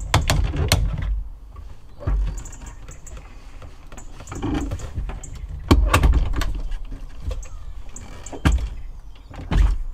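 Haswing electric outboard being tilted up by hand in its transom well: a series of separate clunks and clicks from the tilt bracket as it steps up its notches, the loudest about six seconds in.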